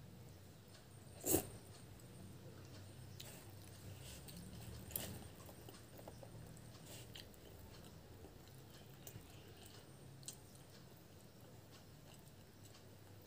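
Close-miked chewing and mouth sounds of a person eating puri dipped in ghugni. There is a sharp click a little over a second in and a smaller one around five seconds in.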